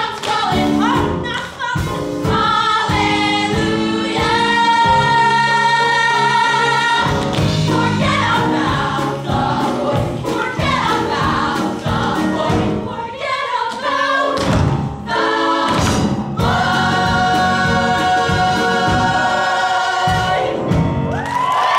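Female ensemble singing a musical-theatre show tune in full voice with a live band of piano and drum kit, holding one long chord partway through and a final long held note near the end.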